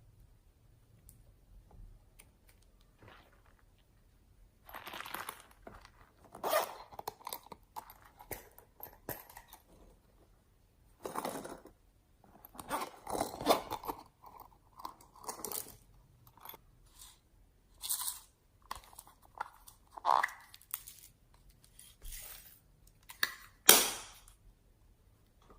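Slime, mixed with clay, being squeezed and kneaded by hand, making irregular crackly, squishy bursts. It starts a few seconds in, and the sharpest crackle comes near the end.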